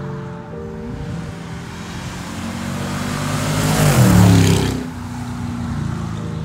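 A car drives past, growing louder to a peak about four seconds in, its engine note falling as it goes by, then fading quickly. Background music with sustained chords plays throughout.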